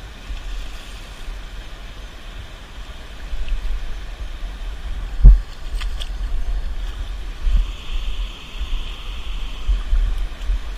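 Wind rumbling on the microphone over lapping water while a hooked gar is fought, with a single loud thump about five seconds in.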